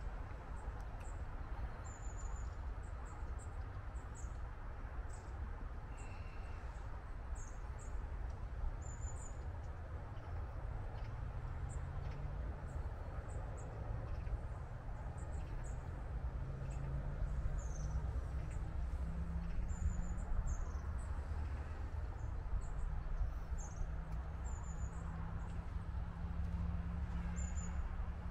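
Wind rumbling on the microphone, with short high bird chirps scattered throughout. From about twelve seconds in, a low steady hum joins and grows louder toward the end.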